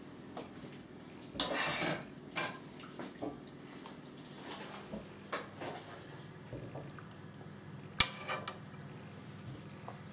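A metal spoon clinking and scraping in a cooking pan as grated bottle gourd is stirred in milk, with a longer scrape about a second and a half in and a sharp clink near the end.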